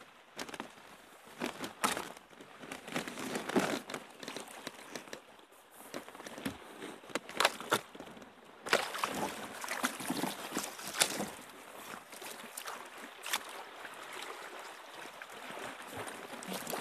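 Water sloshing and trickling around a kayak, with irregular sharp knocks and clicks; from about nine seconds in the wash of noise grows denser.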